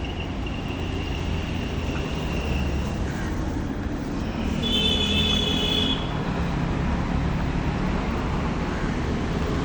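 Steady road traffic noise, with a brief high-pitched tone, the loudest moment, about five seconds in.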